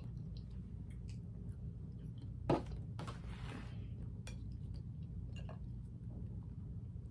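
Faint clinks and clicks of a french fry against a small glass ketchup cup and a plate, over a steady low room hum, with one short louder sound about two and a half seconds in.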